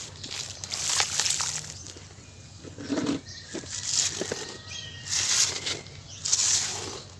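Crumbly sand-cement being crushed and worked in water into a paste: a series of gritty, wet crunching strokes, roughly one a second, with a duller thud about three seconds in.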